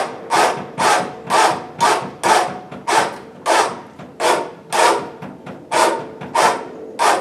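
Hand winch being cranked under load, its ratchet giving a rasping stroke about twice a second in a steady rhythm.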